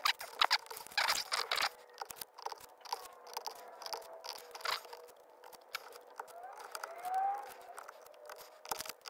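Blue painter's tape being peeled off a steering wheel's airbag cover: irregular crackling and ripping, densest in the first couple of seconds, then scattered tears.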